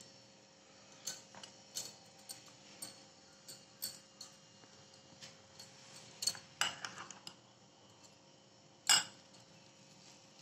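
Metal spoon clicking and scraping against a small bowl of khoya, a few scattered light clicks with the loudest one near the end.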